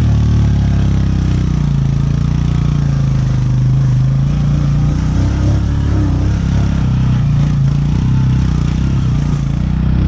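Motorcycle engine running at a steady pitch, heard from on the bike as it rides along.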